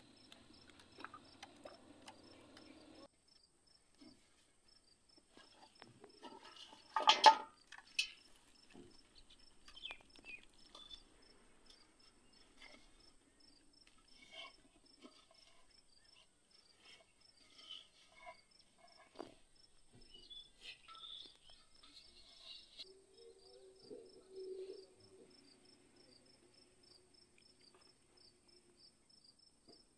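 A faint, steady, high insect chirr, probably crickets, with scattered soft clicks and rustles of plastic bottles and fishing line being handled on grass. One sharp knock about seven seconds in is the loudest sound.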